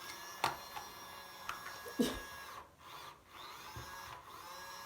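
Mini toy makeup-brush washing machine running with water inside, its small electric motor whining up to speed, cutting out briefly twice and spinning up again. A few sharp clicks, the loudest about two seconds in.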